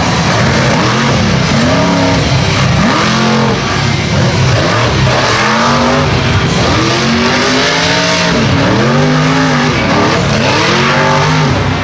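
Monster truck engine revving hard over and over, its pitch swooping up and falling back about once a second.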